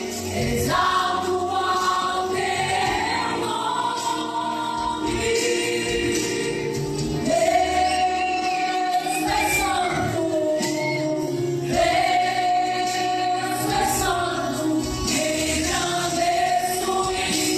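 Live gospel worship song: a vocal group, mostly women, singing long held notes together into microphones over amplified backing music with bass and cymbal strikes.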